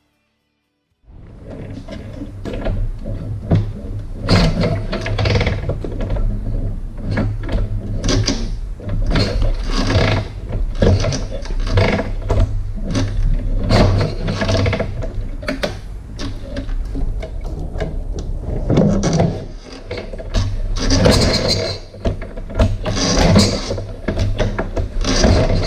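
A machine running steadily with a low hum, overlaid by irregular mechanical clattering and knocks; it starts about a second in.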